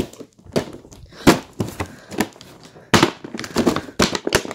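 Boxed toy packaging being handled roughly: an irregular string of sharp knocks and crinkles of the plastic and cardboard.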